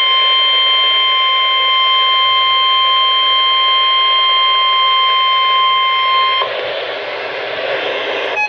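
NOAA Weather Radio warning alarm tone: one steady, loud, high 1050 Hz tone that signals a coming warning message. It cuts off about six seconds in, leaving radio hiss.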